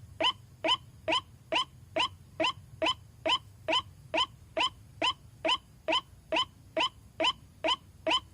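White-breasted waterhen calling: one short pitched note repeated at an even pace, a little over twice a second.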